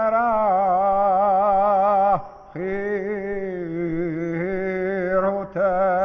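A man's solo voice chanting long held notes with a wavering vibrato. It breaks off briefly for breath about two seconds in and again near the end.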